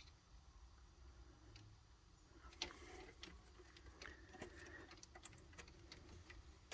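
Near silence: faint, scattered light clicks and ticks, starting about two and a half seconds in, from handling the wiring, over a low background hum.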